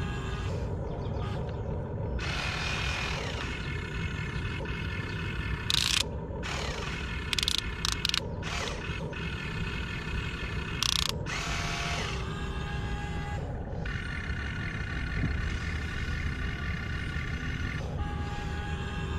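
The Huina 1592 1:14 RC excavator's electric motors and metal gearboxes whine as the boom, arm and bucket move, the whine shifting in pitch and stopping and starting as each function is run. Several brief loud rattles come in the middle.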